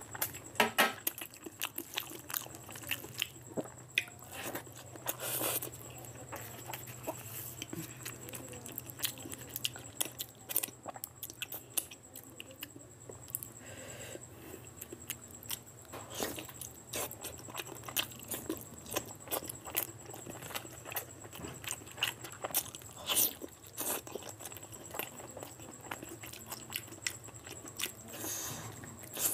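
Close-miked eating sounds: wet chewing and lip smacking in many short irregular clicks as meat curry is eaten by hand and torn off the bone. A faint steady hum runs underneath.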